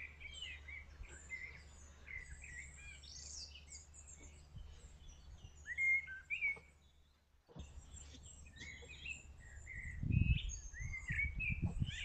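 Several small birds singing and chirping, short warbled phrases one after another, over a steady low hum. The sound cuts out completely for about half a second around seven seconds in, and a short low rumble comes in near ten seconds.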